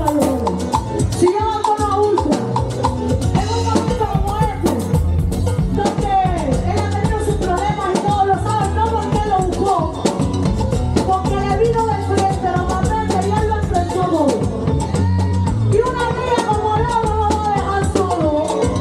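Background music: an upbeat Latin song with a sung vocal line over a steady bass and drums.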